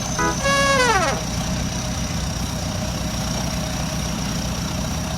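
The music ends with a short note and a falling glide in pitch about a second in. An engine then idles steadily as a low rumble, with a thin high whine above it.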